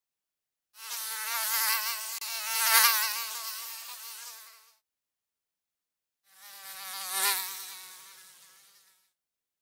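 Mosquito's high-pitched wing whine, heard twice: a buzz of about four seconds and then one of about three, each swelling to a peak and fading away, its pitch wavering slightly.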